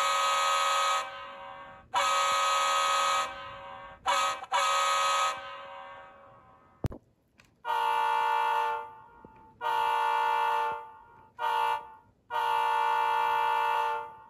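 Diesel locomotive air horn sound from the ESU LokSound 5 decoder in a ScaleTrains EMD SD40T-2 model, played through the model's small speaker. One horn sounds the grade-crossing signal, long, long, short, long. After a sharp click, a second, lower-pitched horn selection sounds the same pattern.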